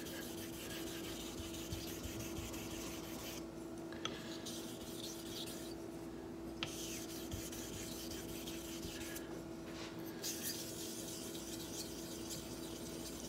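A laminated straight razor stroked back and forth on a wet 1,000-grit sharpening stone with slurry, a continuous scratchy rasping broken by three brief pauses. This is the bevel being set on the coarse stone. A faint steady hum runs underneath.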